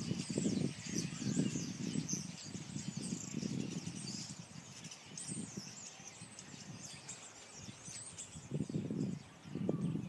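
A large flock of small birds perched on power lines, chattering with many overlapping high chirps throughout. A low rumbling noise surges and fades under it, strongest in the first few seconds and again near the end.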